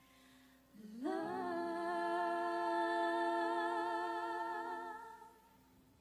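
Two women singing into microphones: about a second in, their voices slide up into one long held note with vibrato, which fades away about a second before the end.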